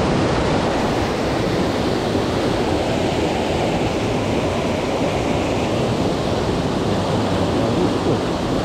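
River rapids rushing over boulders: a steady, loud wash of whitewater.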